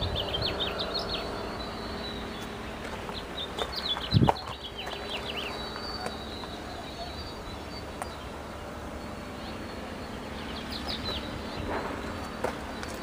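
Small birds chirping in three quick bursts of short notes over a steady low hum, with a single loud knock about four seconds in.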